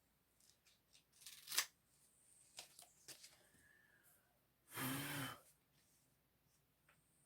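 Adhesive screen-repair tape and window screen being handled: soft rustles and scattered small clicks. About five seconds in there is a short, louder breathy noise lasting under a second.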